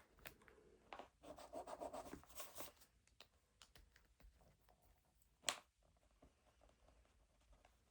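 Faint writing on paper: scratchy, rubbing strokes of a pen or pencil in the first few seconds, then scattered light ticks. A single sharp click about five and a half seconds in.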